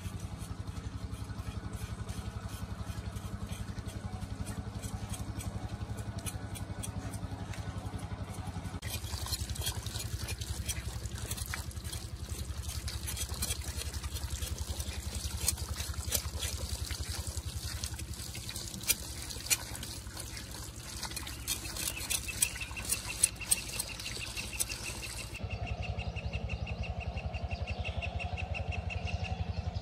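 A small motorcycle engine running steadily, with scattered clicks and knocks over it in the middle part.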